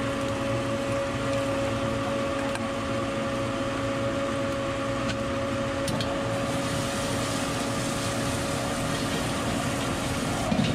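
Wok frying: a steady hiss of egg, ham and rice sizzling in a hot wok over a burner with a constant hum, and a few light clicks of the metal spatula against the wok.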